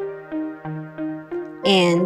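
Background music: a light melody of short, evenly paced notes.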